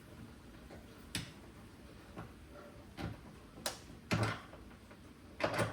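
Scattered clicks and knocks of a window lock and window frame being handled while the lock is fitted and tried, about six in all, the loudest near the end.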